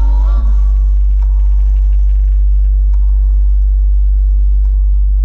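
Jeep's car-stereo subwoofer (Kicker L7 Solo-Baric) playing a loud, sustained deep bass note that holds steady. Hard bass like this overloads the GoPro's internal microphones, so the sound is clipped.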